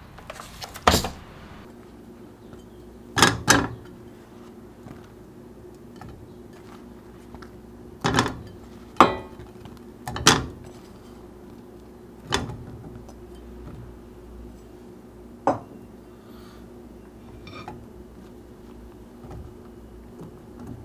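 Whole tomatillos and jalapeño chiles dropped one at a time into an enamel-coated pot, each landing with a sharp knock against the pot and the produce already in it: about eight knocks at uneven intervals, over a faint steady hum.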